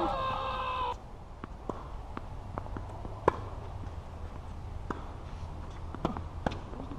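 An added comic sound effect, a held note of several tones, cuts off abruptly about a second in. Footsteps and sharp knocks on a tennis court follow, one knock louder a little past the middle, over a low steady hum.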